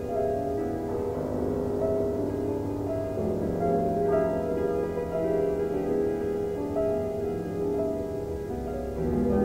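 Solo piano playing a slow passage of held, overlapping notes, with a low note entering about three seconds in and sustained almost to the end.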